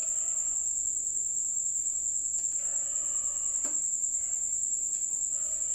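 Crickets chirping in a steady, high-pitched trill, with a few faint clicks.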